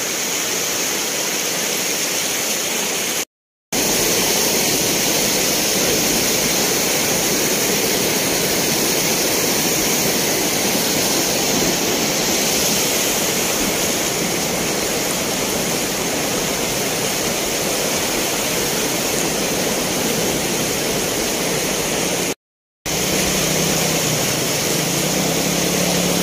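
Steady, loud rushing noise, broken by two brief dropouts where the footage is cut. A low, wavering engine hum comes in over the noise for the last few seconds.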